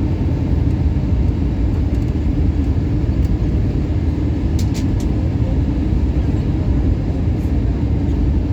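Steady roar of an Airbus A321 cabin in flight: engine and airflow noise, heaviest in the low rumble with a constant hum running through it. A few faint ticks come about halfway through.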